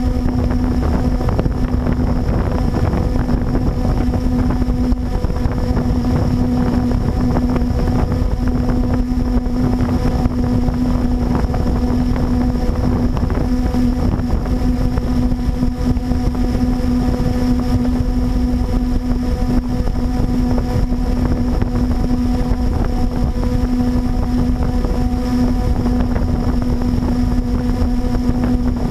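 Blade 350QX quadcopter's electric motors and propellers humming at a steady pitch as it hovers, with wind rushing over the microphone.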